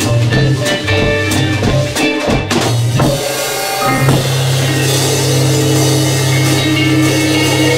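Live rock band of electric guitar, bass, keyboards and drum kit playing an instrumental passage: drums keep a beat for the first few seconds, then from about four seconds in the band holds one long chord over a sustained bass note while the cymbals ring.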